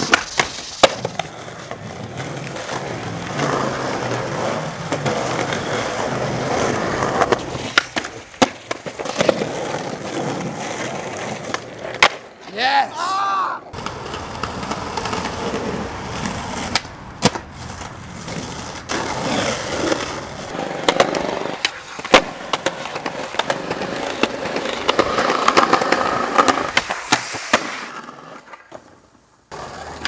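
Skateboard wheels rolling over concrete, with repeated sharp clacks of the board popping and landing.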